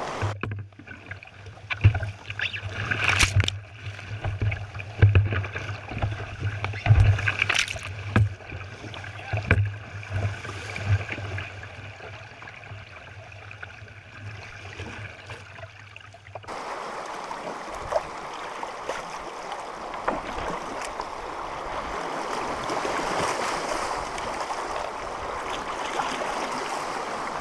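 Rushing river water around a canoe running a riffle. For the first half a low rumble and irregular sharp knocks dominate the boat-mounted microphone; then it switches abruptly to a steady hiss of fast-moving water.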